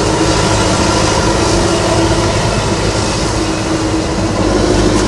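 Kubota rice combine harvester running close by: the engine and threshing machinery make one loud, steady mechanical din with a constant hum under it.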